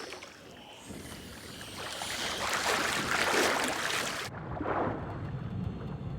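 Water sloshing and splashing at the surface, building to a loud hiss, then suddenly muffled about four seconds in, leaving a low rumble.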